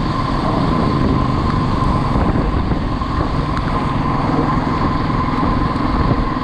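Motorcycle running steadily while being ridden, a loud continuous engine and road noise with a steady tone.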